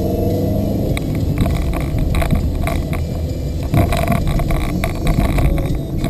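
A car being driven, heard from inside the cabin: a steady low engine and road rumble with scattered small clicks and rattles.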